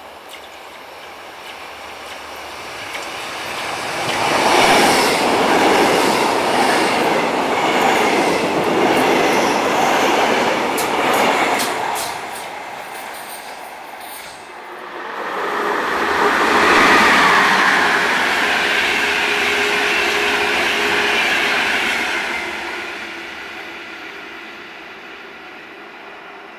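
Electric trains passing close by: a Hamburg S-Bahn electric multiple unit runs past, with a quick run of clicks from its wheels over the rail joints near the end of its pass. After a brief lull a second train passes with a steady whine and fades away.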